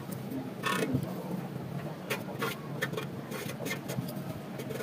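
Short scrapes and taps of an empty metal paint can being turned on a table and written on with a marker pen, over a steady low hum.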